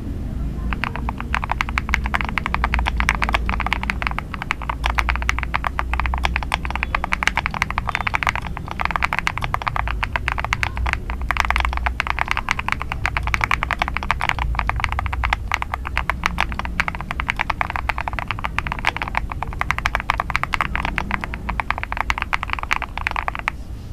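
Fast, continuous typing on a GMK67 mechanical keyboard with freshly lubed switches: dense keystroke clacking starting about a second in, with a low steady rumble underneath.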